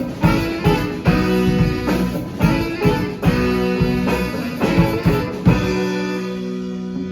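Live band with drums and guitar playing a song's closing accents, then ending on one long held chord about five and a half seconds in.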